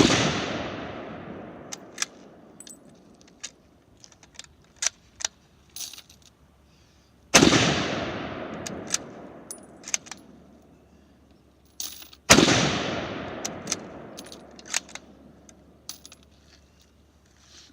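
Three gunshots, one at the start, one about seven seconds in and one about twelve seconds in, each echoing away over a few seconds. Between the shots come small metallic clicks and clinks from handling the gun.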